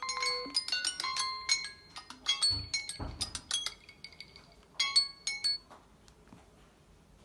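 A phone alarm tone: a quick melody of bright, glassy chiming notes. Two dull knocks come about two and a half and three seconds in, and a last short run of notes about five seconds in before the tone stops.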